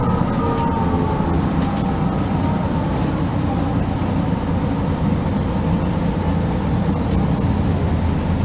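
Interior of a 1999 MAN NG312 articulated diesel city bus under way: steady engine and road rumble. A faint high whine comes in near the end.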